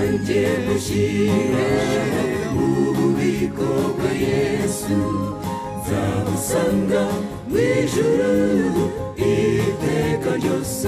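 A mixed gospel choir of men's and women's voices singing a song together, sustained and full throughout.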